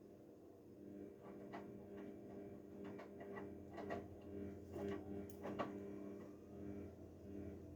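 Haier 7.5 kg front-loading washing machine running a delicate wash cycle: a steady motor hum with a scatter of irregular clicks and knocks from the drum, and a low rumble building near the end.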